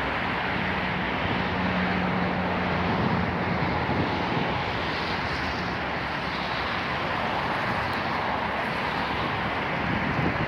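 Steady noise of city road traffic, with a low engine hum during the first few seconds.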